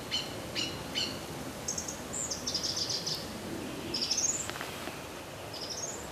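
Small songbirds calling over a steady hiss. A few short chirps come in the first second, a fast trill about two seconds in, and quick rising runs of notes about four seconds in and again near the end.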